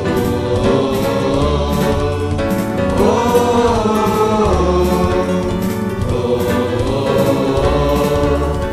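Boys singing a Christian hymn together, holding long notes, over an instrumental backing with a steady beat.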